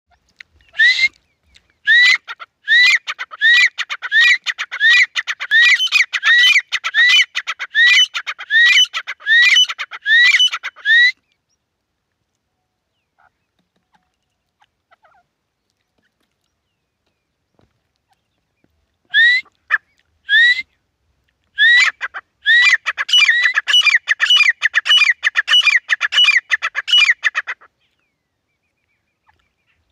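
Grey francolins calling: a run of repeated, rising calls, about one and a half a second, until about 11 seconds in. After a pause the calling comes back at about 19 seconds, denser and overlapping as two birds call together, and stops near the end.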